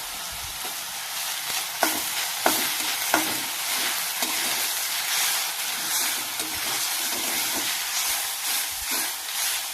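Grated potato with ginger, chilli and curry leaves sizzling in a little hot oil in a kadhai while a spoon stirs it, with a few sharp knocks of the spoon against the pan in the first few seconds.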